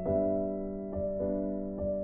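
Background music: a soft piano melody, single notes struck a few times and left ringing over a held chord.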